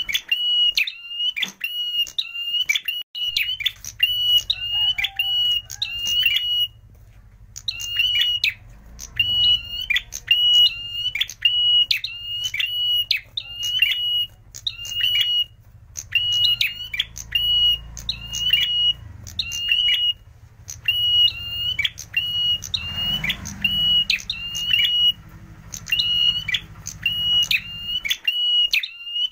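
Caged prenjak merah (ashy tailorbird) calling: a fast run of sharp, high, ringing notes, about two a second, broken by short pauses every few seconds.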